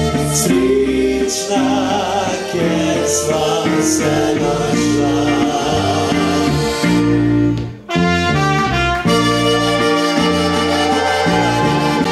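Live band playing an instrumental passage led by trumpet and saxophone over a bass line. The band stops briefly about eight seconds in, then starts up again.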